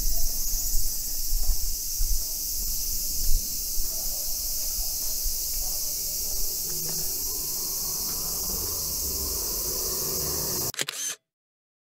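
Steady, high, shrill chorus of summer insects, over an uneven low rumble with a few thumps. All of it cuts off suddenly near the end.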